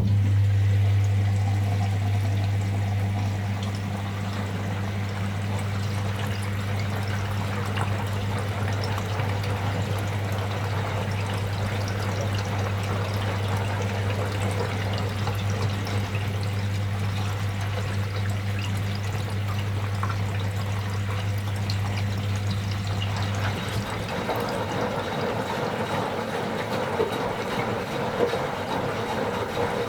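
Washing machine starting up out of silence: water rushing and pouring into it under a steady low electrical hum. The hum cuts off abruptly about 24 seconds in, while the water sound and sloshing carry on.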